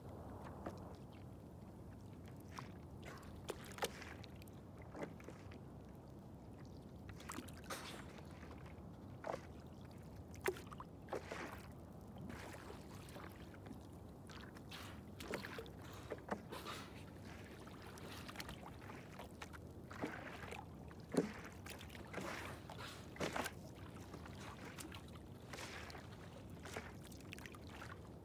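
Water lapping against a small boat's hull, with frequent short slaps and splashes over a faint, steady wash.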